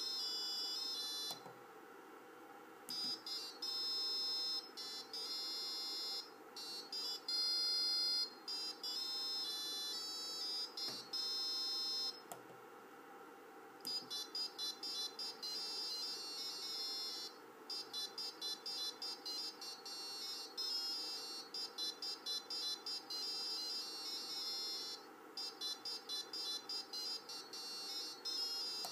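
A tune of high-pitched electronic square-wave beeps, the PWM sound signal generated by an Arduino for Tesla-coil sound control, played in phrases with short pauses. From about halfway it turns into quick, short staccato notes, while the pulse width (duty cycle) is being turned up and down.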